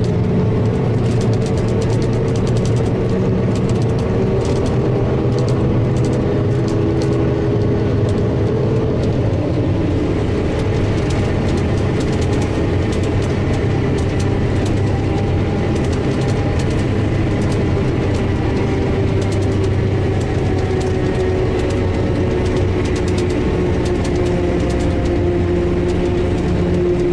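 CLAAS self-propelled forage harvester running under load while chopping standing corn, heard from inside the cab: a steady drone with a low rumble and a few held tones. Light ticking sounds over it for the first several seconds.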